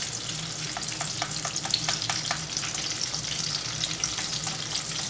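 Battered tomato fritters deep-frying in hot oil in a kadhai: a steady sizzle full of small crackles, with a quick run of sharper pops in the first half.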